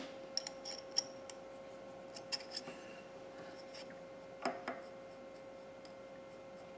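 Small metal tools clinking and clicking in short bunches as center drills are rummaged through, over a faint steady hum.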